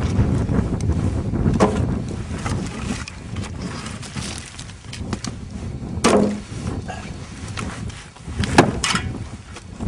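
Three sharp knocks as the steel blade of a homemade spring-loaded lever wood splitter strikes logs, over a steady low rumble of wind on the microphone.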